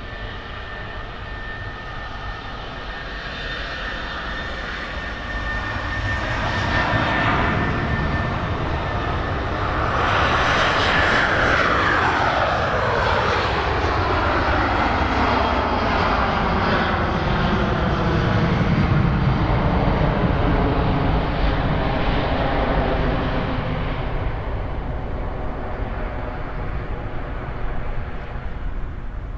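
Boeing 737-800's CFM56-7B turbofans at takeoff thrust on the takeoff roll. The sound builds steadily, then a whine falls in pitch as the jet passes about ten seconds in. A deep rumble follows and slowly fades as the jet lifts off.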